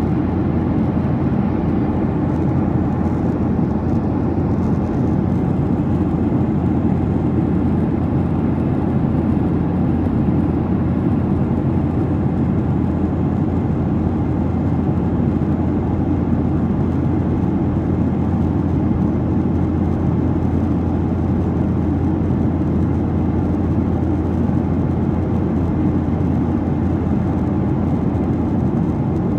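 Steady cabin noise inside a Boeing 737-800 in flight: a constant deep rush of airflow and its CFM56-7B jet engines, loud and unchanging.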